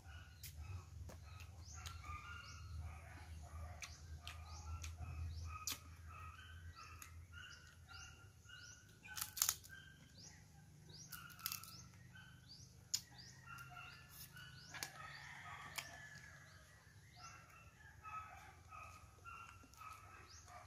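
Faint birds chirping over and over, broken by a few sharp clicks and cracks from crab shells being picked apart by hand; the loudest crack comes a little under halfway through.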